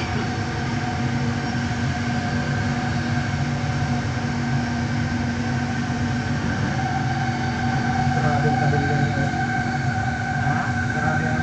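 Kelana Jaya Line LRT train, driven by linear induction motors, running steadily along the elevated guideway, heard from inside the car: an even running rumble with a steady whine at a few fixed pitches.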